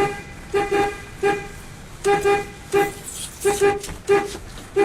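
Delivery truck's horn beeped over and over in short taps, about ten beeps, some in quick pairs, all on one steady pitch.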